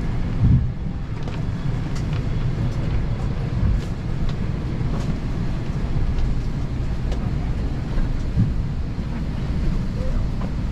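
Cabin noise of an Airbus A320 after landing: a steady low rumble with a few faint clicks and light knocks.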